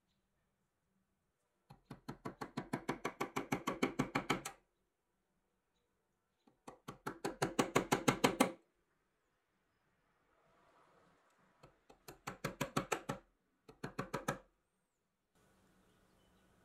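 A white plastic tool worked against the toy biplane's small black metal bracket, giving rapid runs of clicks, about eight to ten a second. There are four runs, each getting louder as it goes, the last one short.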